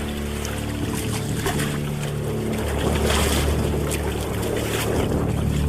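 Background music with held low notes that change every second or two, over steady wind and water noise.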